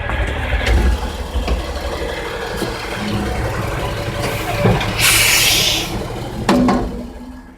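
Yard truck engine running with a steady low rumble, and a short burst of air hiss about five seconds in; the sound fades near the end.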